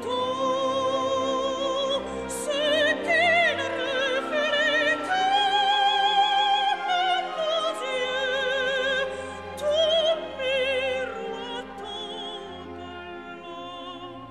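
Operatic orchestra with a high voice singing slow, sustained lines with wide vibrato over held strings and woodwinds, growing softer near the end.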